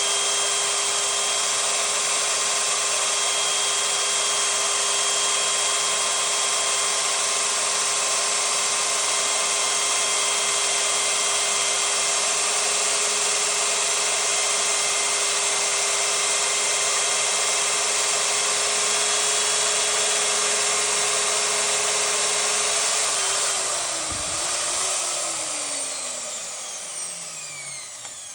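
Diamond drilling machine running steadily with a constant motor whine, then switched off about 23 seconds in, its motor spinning down with a falling pitch.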